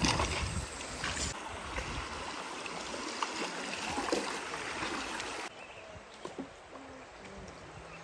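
River water rushing and splashing around a bamboo raft being poled downstream, with a few light knocks. About five and a half seconds in, it drops suddenly to quieter flowing water.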